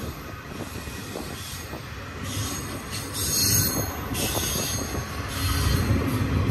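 Double-stack intermodal freight cars rolling past on curving track: a steady low rumble of wheels on rail, with high-pitched wheel squeal coming in patches from about two seconds in. The rumble grows louder near the end.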